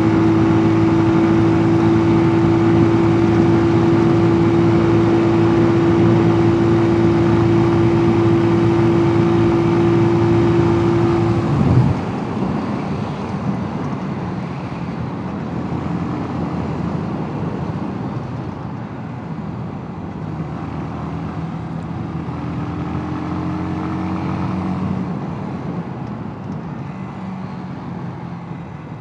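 Mash Two Fifty 250 cc single-cylinder motorcycle engine held at steady high revs while riding. About twelve seconds in, the engine note drops sharply and gets quieter. It then runs lower and unevenly, rises a little again later on, and falls away toward the end.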